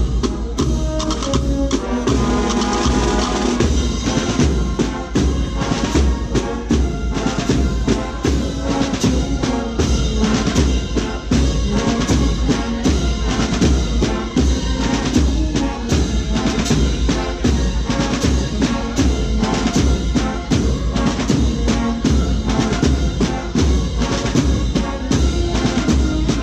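Holy Week procession band playing a march: snare and bass drums beat a steady, driving rhythm under a pitched tune.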